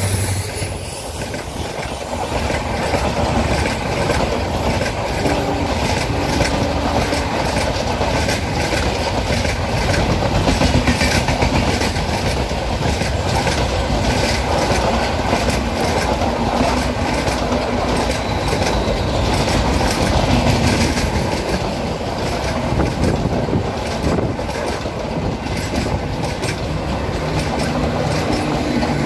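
LHB passenger coaches of an express train rolling past, their wheels clattering over the rail joints in a steady rapid rhythm. Near the end the rear luggage-generator car passes with a low steady hum.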